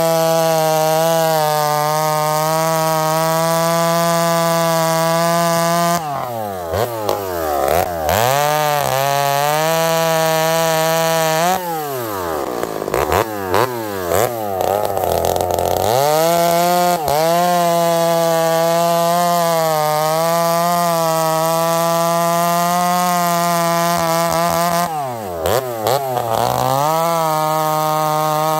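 Ported Husqvarna 266XP two-stroke chainsaw cutting through a log at full throttle. The revs fall off and climb back between cuts, about six, twelve and twenty-five seconds in. The saw is a rebuilt one still being broken in.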